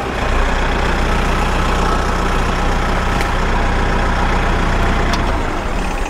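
Tractor engine driving a Woodland Mills TF810 PRO PTO wood chipper as a branch is fed in, with a steady low drone. Near the end the lowest part of the drone drops away.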